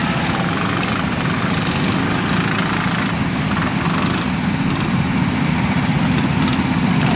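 Several rental go-kart engines running together at low revs: a steady, even drone with no revving up.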